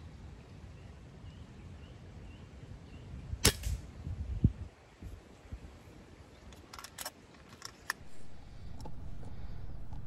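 A .177 FX Dreamline PCP air rifle fires once, a sharp crack about three and a half seconds in. A dull thump follows about a second later, then a few light clicks around seven seconds in.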